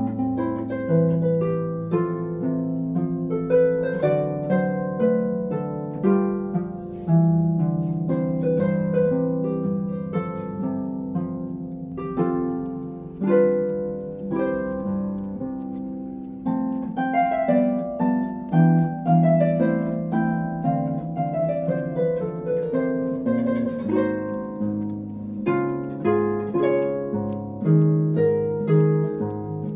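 Background harp music: a steady stream of plucked harp notes, often several at once, each ringing and fading.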